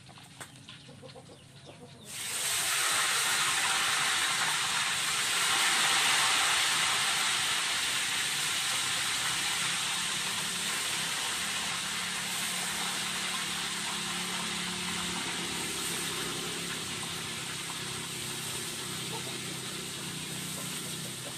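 Tempe slices sizzling in hot oil in a wok. The sizzle starts suddenly about two seconds in as the slices go into the oil, then slowly eases off.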